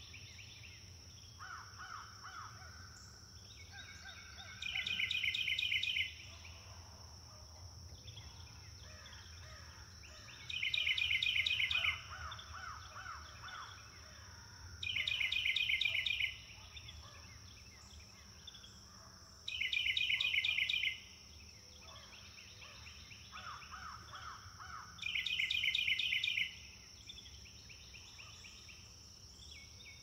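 Morning birdsong: one bird repeats a loud, fast trill of high notes five times, each about a second and a half long and about five seconds apart. Quieter bird calls come in between, over a steady high drone.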